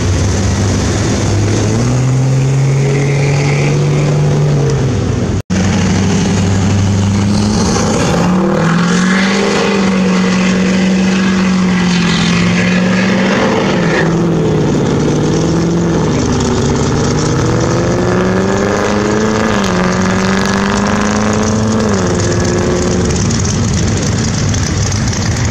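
Cars driving off one after another: a lifted Jeep Cherokee's engine revving as it pulls away, then a Dodge Charger doing a burnout, its engine revving over the noise of spinning tyres, then an engine accelerating hard through several gear changes, its pitch climbing and dropping back at each shift.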